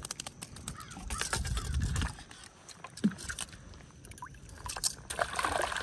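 Shallow water sloshing and lapping, with scattered clicks and knocks from hands working a fish and hook in a mesh landing net.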